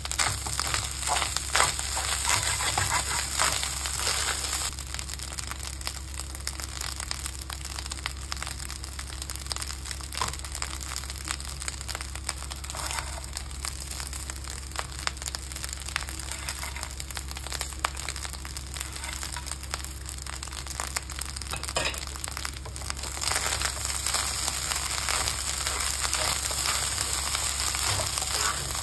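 Fried rice sizzling in a stainless-steel honeycomb pan while a wooden spatula stirs and tosses it, a steady hiss with repeated scraping strokes. The stirring is busier in the first few seconds and again over the last six or so, and quieter in between.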